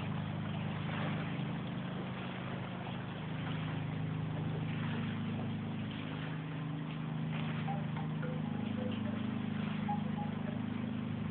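Torrential rain pouring down and spilling from overflowing roof gutters: a steady rushing noise with a low rumble underneath. A few faint short high tones come in during the second half.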